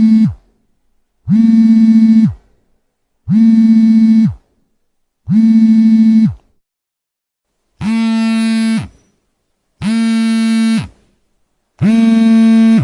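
Mobile phone vibrating in repeated buzzes, each about a second long and coming about every two seconds, the pattern of an incoming call. Two buzzes in the middle are a little quieter than the rest.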